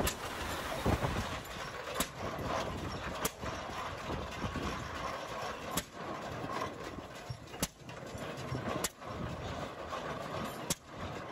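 The single-cylinder IH Famous engine of a 1911 International Harvester Type A tractor running, with a sharp exhaust bang every one to two and a half seconds at uneven intervals, typical of a hit-and-miss governed engine.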